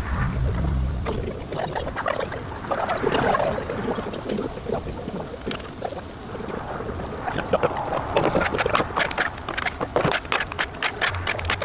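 Brown sugar and butter glaze bubbling and sizzling on a flat-top griddle, with some wind on the microphone at the start. From about two-thirds of the way in, metal spatulas click and scrape against the steel griddle top as sweet potato slices are turned.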